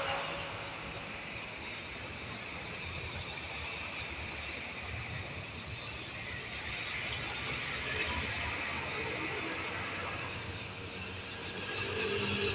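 Distant road traffic on an open highway, a low rumble that swells and fades, with a steady high-pitched tone above it. Near the end a motorcycle approaches and the sound grows louder.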